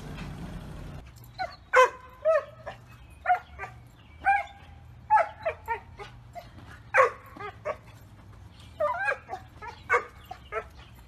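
A dog barking over and over in short, high yips, starting about a second in and grouped in quick runs of two to four.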